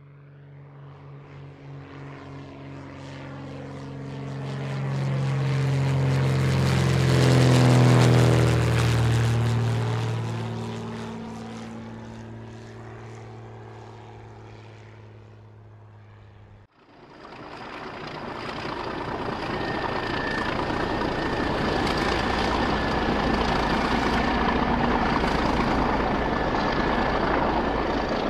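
A propeller-driven craft passes over, building to its loudest about 8 s in and then fading away. After an abrupt cut about 17 s in, a GB Railfreight Class 66 diesel locomotive hauling a freight train runs steadily, with a thin high whine over the engine noise.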